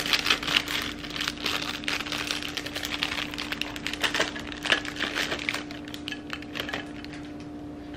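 Nuts and seeds from a salad kit's plastic toppings packet shaken out onto salad in a glass container: a run of light clicks and ticks, with some crinkling of the plastic packet. The clicks thin out in the last couple of seconds over a steady low hum.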